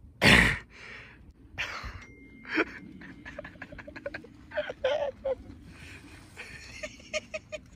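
Strained gasps and wheezing breaths from a person squeezed inside a giant latex balloon. A loud gasp comes about a third of a second in, followed by softer breaths and scattered short clicks and squeaks.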